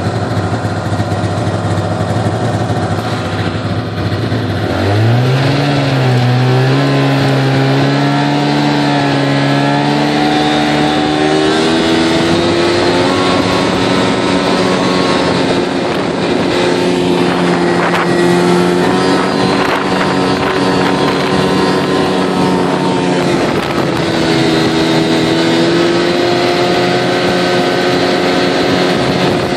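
Snowmobile engine pulling a loaded sled across snow: it speeds up about five seconds in, its pitch rising, then runs steadily at travelling speed with small rises and falls in pitch.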